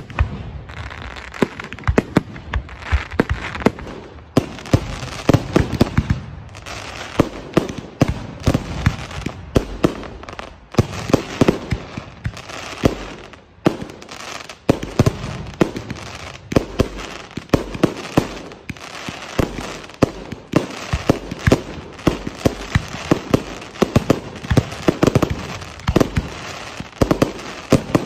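Aerial fireworks bursting in a rapid, continuous barrage: many sharp bangs a second, one on top of the next, with a crackling haze between them.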